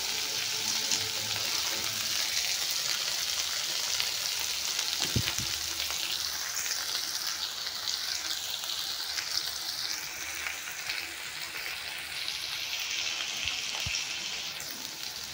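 Chopped onions and green chillies sizzling in hot oil in a kadai over a high gas flame, a steady crackling hiss as they are browned. It eases somewhat in the second half.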